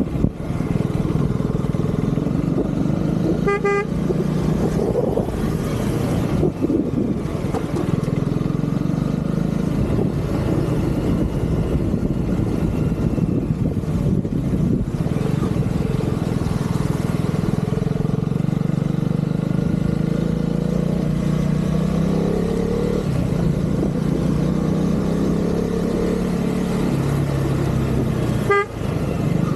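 Husqvarna Vitpilen motorcycle engine running under way, its pitch rising and falling gently with the throttle. A horn toots briefly twice, about three and a half seconds in and near the end.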